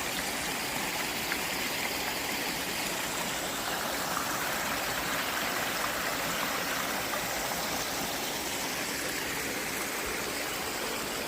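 A small brook flowing with a steady rush of water.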